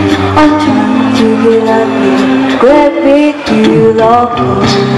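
A vocal group singing held chords in close harmony over a low bass line, amplified through stage microphones, with a light steady beat.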